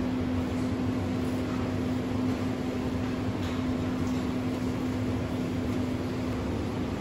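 Steady hum and whir of kitchen machinery with one strong low tone, unchanging throughout, with a few faint taps on top.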